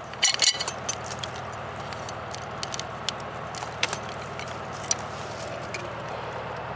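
John Deere 2750 farm tractor's diesel engine idling steadily, with scattered sharp clicks and crackles over it, most of them in the first second.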